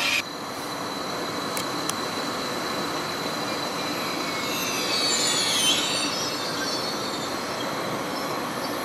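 Train rolling on the rails with a steady running noise. About halfway through, high wheel squeal sets in briefly as a cluster of gliding tones, and a couple of light clicks come early on.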